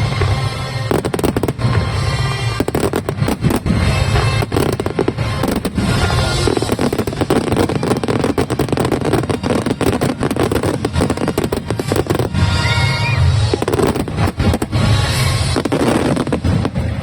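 A dense barrage of aerial fireworks, with a rapid run of crackling bursts and repeated low booms, while music plays along.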